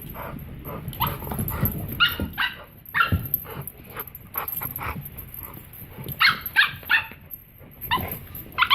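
Miniature pinscher puppy barking in short, high-pitched yips, coming in quick clusters of two to four, while dogs play. Low thumps run underneath.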